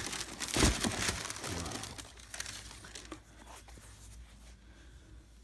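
Tissue paper crinkling and rustling as a sneaker is pulled out of its shoebox, loudest about half a second in. It dies away after about two seconds to faint handling of the shoe.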